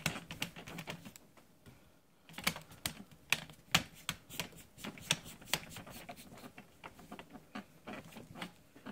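Plastic screen bezel of an Asus S56C laptop being pressed onto the display lid, its clips snapping into place in a run of sharp, irregular clicks, with a short pause between about one and a half and two seconds in.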